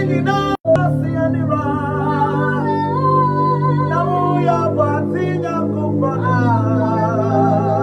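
Gospel worship song: a voice singing a slow, wavering melody over sustained instrumental chords. The sound drops out completely for an instant about half a second in.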